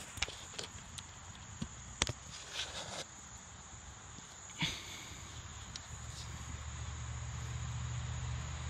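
Faint outdoor ambience: a steady high insect trill, with a few scattered clicks and a low rumble building over the last few seconds.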